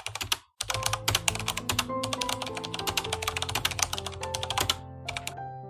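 Rapid keyboard-typing clicks, a sound effect for the captions being typed out, over piano background music; the clicks stop near the end after a last short run.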